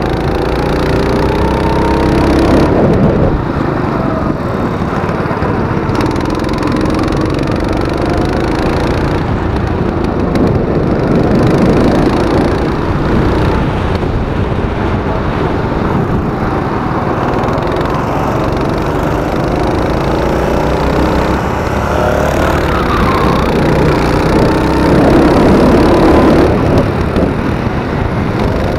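Small go-kart engine heard from onboard at racing speed, its pitch climbing as the throttle opens and dropping back into the corners several times over.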